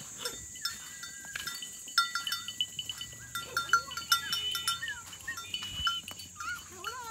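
Goats bleating with a wavering pitch among many short, high chirping calls, over a steady high-pitched whine.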